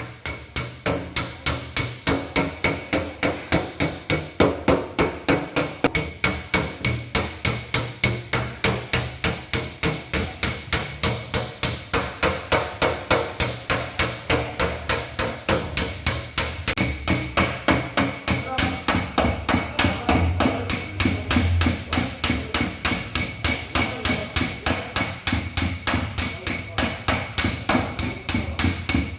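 Body hammer beating a car's sheet-metal panel in a steady rhythm, about two strikes a second, with a metallic ring: dent repair on a damaged fender or door.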